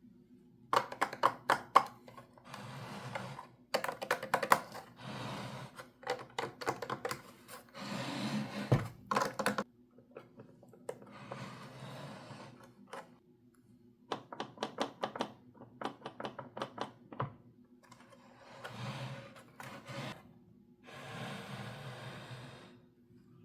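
Toy pieces and packaging being handled: clusters of plastic clicks and taps alternate with short stretches of rustling, over a faint steady hum.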